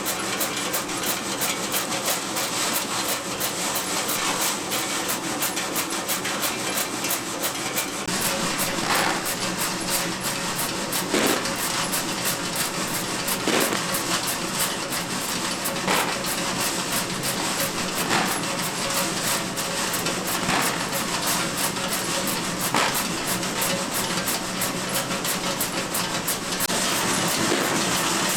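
A mass of hard menthol candies rattling and rubbing against one another as they are tumbled by machine, a steady dense clatter. From about eight seconds in a brighter swish comes about every two seconds.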